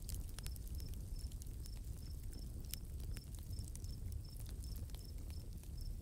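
Night nature ambience: a cricket chirping in short, high, evenly spaced chirps, two or three a second. Underneath are a low rumble and scattered sharp ticks and pops.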